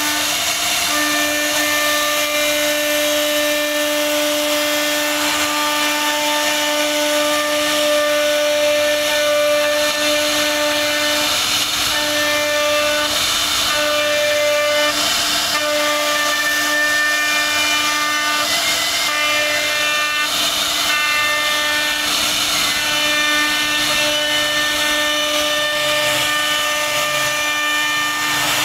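CNC router spindle running a steady, high whine as its bit carves into a wooden board, with the hiss of wood being cut. The whine wavers briefly about halfway through.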